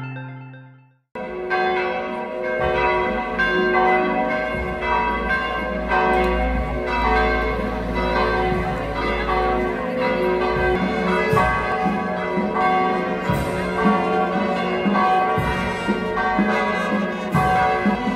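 Church bells pealing: several bells struck over and over, their ringing tones overlapping, starting about a second in as a short music jingle fades out.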